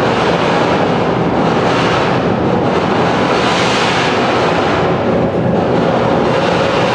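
Live electronic noise music: a loud, dense wash of noise with a faint steady tone under it, its upper hiss swelling and fading over a few seconds.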